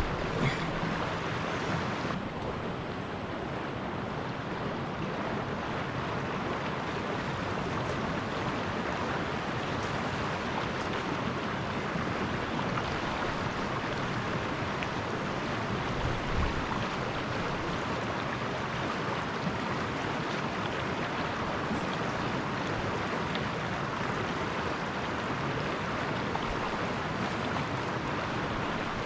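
Small mountain stream running fast, a steady rush of water. A brief low bump about sixteen seconds in.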